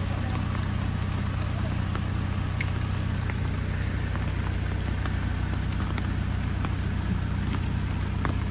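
Case backhoe loader's diesel engine idling steadily, with scattered ticks of rain drops falling.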